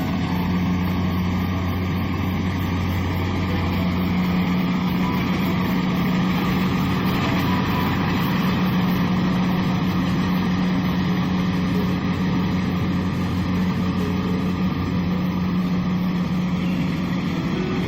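Kubota DC-70 combine harvester's diesel engine and machinery running steadily at a constant speed, a deep even hum under a dense mechanical rush.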